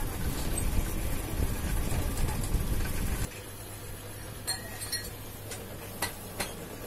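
Metal lathe running and cutting a steel manual-gearbox part, a loud steady machining noise that stops abruptly about three seconds in. A low hum follows, with four light metallic clinks.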